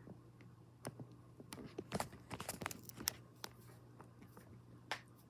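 Emerson 1895 ceiling fan running with a steady low hum, under a run of irregular clicks and crackles, thickest from about a second and a half to three seconds in.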